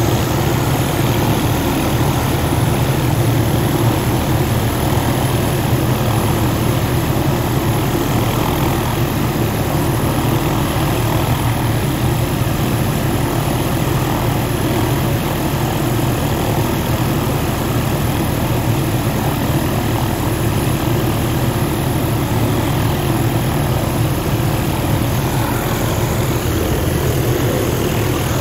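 MD 500E helicopter's turboshaft engine and main rotor running steadily, the rotor turning while the helicopter sits on the ground.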